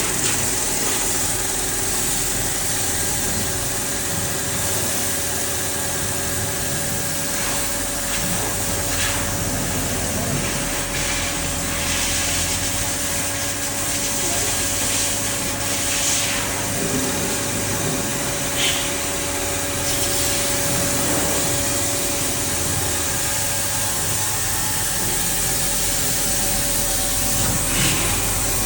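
Calpe M 1300 MH wood copy lathe running: a steady machine hum with a few short, sharp ticks scattered through it.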